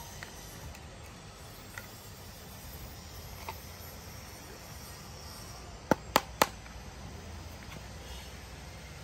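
Hard plastic toy mask being handled, knocking three times in quick succession with sharp clicks about six seconds in, amid a few faint small ticks and a steady low background rumble.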